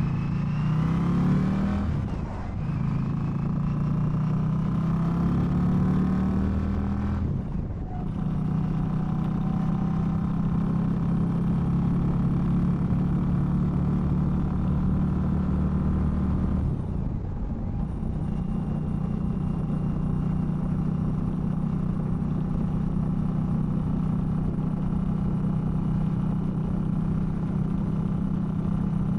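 Indian Scout V-twin motorcycle engine pulling away and accelerating, with short drops in sound at gear changes about two, seven and seventeen seconds in, then running steadily at cruising speed. Heard from a recorder tucked in a sock inside the saddlebag, so there is little wind noise.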